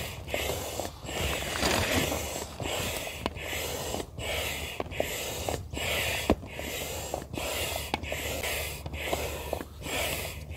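Hand-operated barrel air pump stroking steadily, a little faster than once a second, each stroke a hiss of air pushed into an inflatable kayak seat, with faint clicks from the pump.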